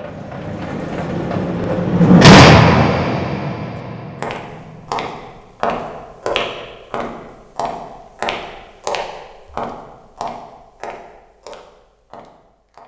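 A swell of noise building into a loud crash about two seconds in, then about a dozen sharp, evenly spaced percussive strikes, roughly three every two seconds, each ringing briefly and slowly fading away.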